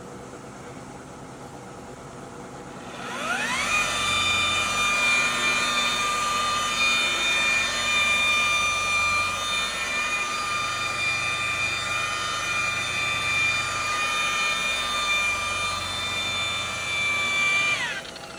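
Electric car buffer with a cutting pad spinning up about three seconds in, then running with a steady high whine as it polishes compound into car paint, and winding down near the end.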